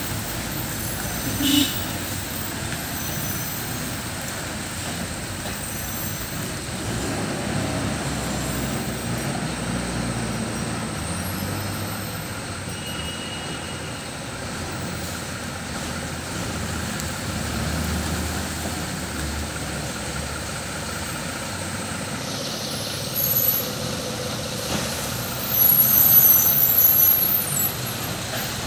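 Diesel engines of a KSRTC bus and then a tipper truck running at low speed as they crawl around a tight hairpin bend, a steady low rumble. Short louder bursts of hiss come near the end.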